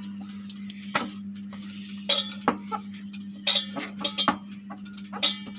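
Wooden rolling pin rolling out pizza dough on a wooden rolling board, with irregular sharp clicks and knocks as the pin and board shift, over a steady low hum.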